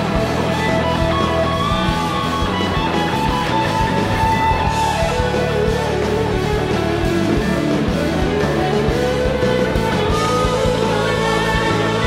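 Live band music led by electric guitar over keyboard and percussion, with a steady beat and sustained melody lines.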